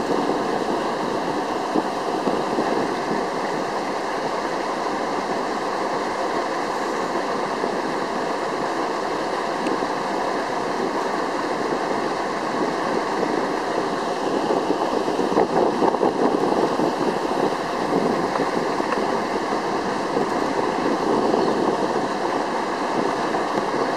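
Steady rushing noise of a boat under way on a calm river, water washing along the hull, a little louder about fifteen seconds in.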